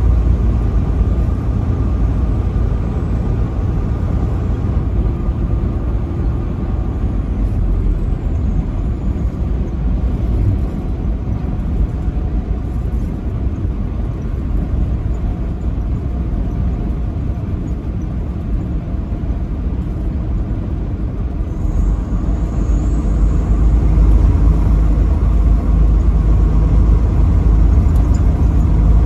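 Truck driving on a highway: a steady low rumble of engine and road noise that grows louder about three-quarters of the way through.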